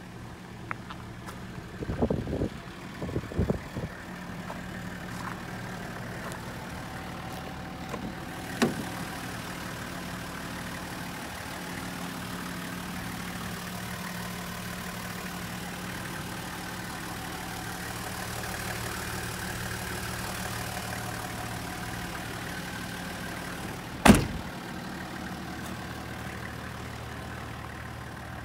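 Toyota Coaster's 1HZ 4.2-litre inline-six diesel idling steadily. A few knocks come in the first few seconds, and a single sharp bang, the loudest sound, comes a little after twenty seconds in.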